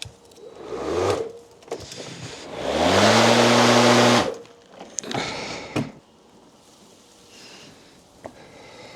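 Cordless lawnmower's electric motor and blade spinning up with a rising whine about three seconds in, running steadily with a loud whoosh for about a second and a half, then cutting off. There are shorter, quieter bursts before and after it, and some handling clatter.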